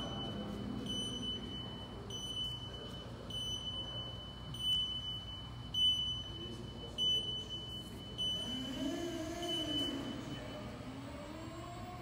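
Warning beeper on a Global AGV automated pallet stacker: one high-pitched beep repeating roughly once a second while the vehicle travels, stopping about ten seconds in.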